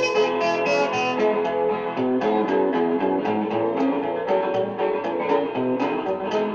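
Rockabilly record playing on a turntable: an instrumental break, with guitar picking over a brisk, steady beat.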